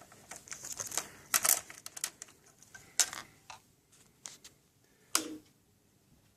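A bunch of keys jingling and clicking as they are handled, with a few sharper clicks, going quiet a little after five seconds in.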